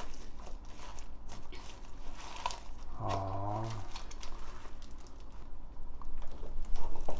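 Rubber-gloved hands rubbing thick chili seasoning paste onto bunches of scallions in a plastic bowl: wet squishing and scattered crackling rustles of the stalks. About three seconds in, a short low hum from a person's voice.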